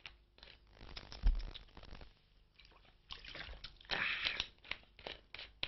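Plastic bottle crinkled and sloshed close to a microphone: irregular crackling and rustling with a low bump on the mic about a second in, standing in for a broken, crackling line to a field reporter.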